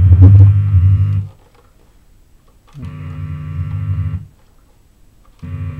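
Electrical hum from a Boss ME-25 guitar multi-effects unit: a steady low buzz with a stack of overtones, the unwanted noise the unit puts out. It cuts out abruptly about a second in, comes back for about a second and a half in the middle, and returns near the end.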